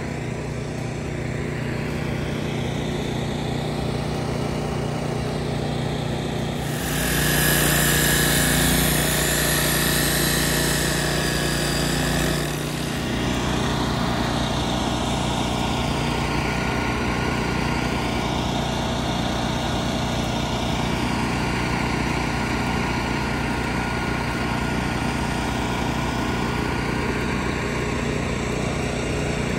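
An engine running steadily. About seven seconds in it gets louder with an added hiss for about five seconds, then settles back to the steady running.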